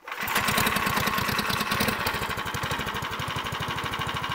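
Mini bike's small gasoline engine firing up and settling into a steady, fast-pulsing idle.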